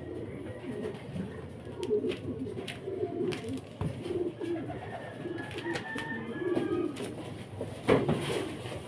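Racing pigeons cooing, a repeated low warble, with a few sharp clicks scattered through and a louder knock near the end.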